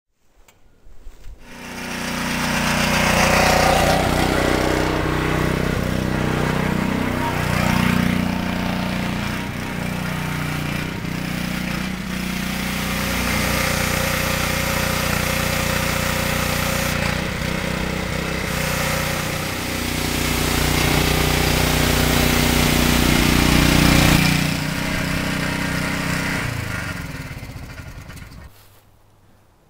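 Motor of a power sprayer running steadily under load while its wand sprays the siding, a low hum with a hissing spray on top, its pitch shifting a little now and then. It fades in about a second in and fades out near the end.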